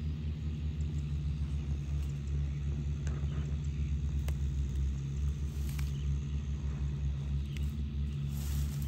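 A low, steady rumble that pulses slightly, with a few faint clicks.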